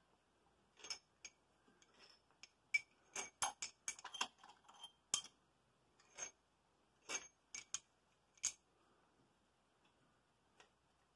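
Steel valvetrain parts of a 12-valve Cummins cylinder head, rocker arms and pushrods, clinking against each other and the head as they are handled by hand. The sound is a string of irregular sharp clicks and clinks, each with a brief metallic ring, bunched between about one and eight and a half seconds in.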